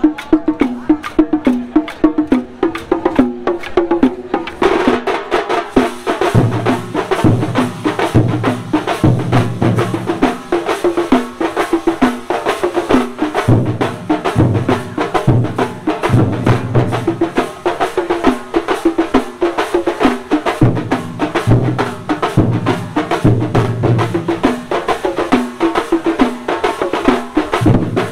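A large troupe of drummers playing fast stick-beaten drums in a tight rhythm. About four and a half seconds in, the playing gets fuller and louder, and from about six seconds deep bass-drum strokes come in, in repeated runs.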